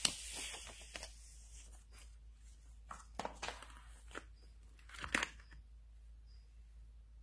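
A paper instruction sheet rustling and crinkling, then a few sharp clicks and knocks as parts are lifted out of a plastic packaging tray, the loudest about two thirds of the way through.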